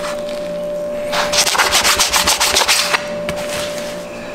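Kitchen knife sawing back and forth through a raw bluefin tuna loin against a plastic cutting board: a rapid rasping run of strokes for about two seconds, starting about a second in, then it stops. A faint steady hum sits underneath.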